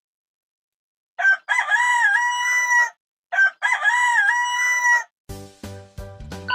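Rooster crowing cock-a-doodle-doo twice, each crow about a second and a half long with a dip in pitch near its end. Music starts near the end.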